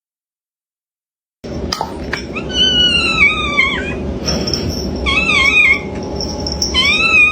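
A cat meowing loudly and insistently: three long, drawn-out calls that waver and fall in pitch, starting after about a second and a half of silence.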